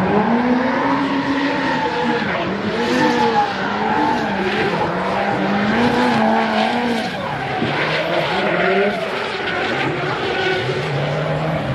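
Drift car engine revving up and down again and again, with tyres squealing and hissing under it.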